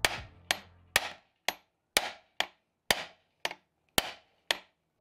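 Hammer striking a seal driver seated in a KTM 125SX crankshaft main bearing, about two sharp ringing taps a second, to drive the tight bearing out of the warmed aluminium crankcase half.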